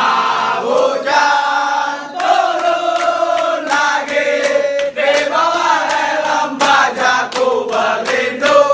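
A group of voices singing together in held, sustained notes, with a few sharp knocks or claps mixed in.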